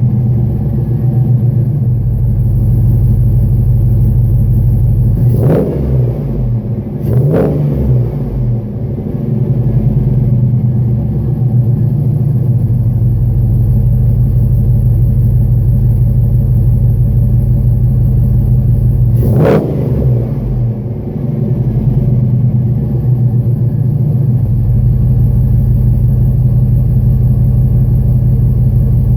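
Chevrolet Silverado SS's LQ9 6.0-litre V8 idling loudly through 1 7/8-inch long-tube headers with no catalytic converters and a Borla Pro muffler. The throttle is blipped three times: twice close together about six and seven seconds in, and once more about twenty seconds in.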